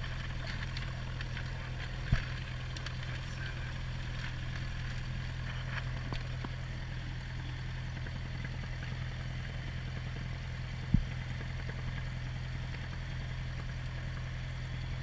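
Cessna 172P's four-cylinder Lycoming engine idling steadily after start-up, a low drone heard from inside the cabin. Two sharp clicks stand out, about two seconds in and about eleven seconds in.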